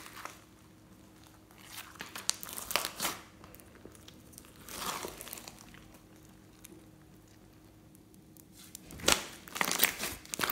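Slime mixed with floam beads being stretched and pressed by hand, crackling. A few faint crackles come early, then the crackling turns dense and loud near the end as the hands squeeze it.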